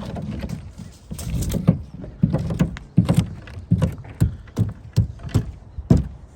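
Irregular knocks and thuds, about one or two a second, from work on a roof deck where rotten plywood sheathing is being replaced.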